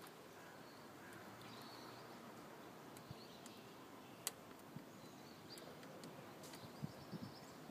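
Near silence: a Lishi pick being worked in a car door lock, with one sharp metallic click about four seconds in and a few fainter ticks, over faint bird chirps.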